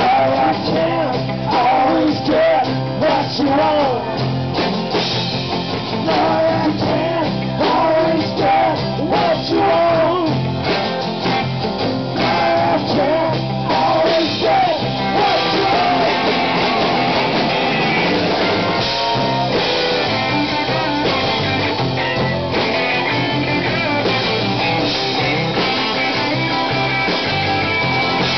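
Live rock band playing, with acoustic and electric guitars over a drum kit; the sound grows fuller and steadier about halfway through.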